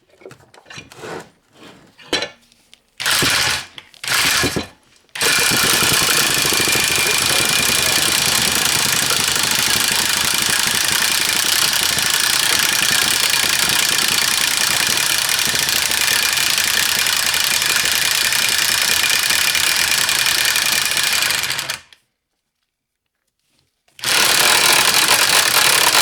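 A Harbor Freight 1/2-inch ratchet's mechanism driven at high speed, its pawl chattering against the gear in a loud, rapid, steady buzz. It comes in two short bursts about three and four seconds in, then runs on without a break, stops dead about 22 seconds in and starts again two seconds later.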